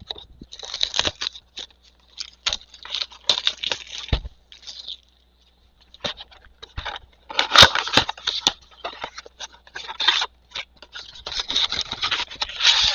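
A cardboard trading-card blaster box being opened and its packs handled: irregular bursts of tearing and crinkling packaging, densest about seven to eight seconds in and again near the end.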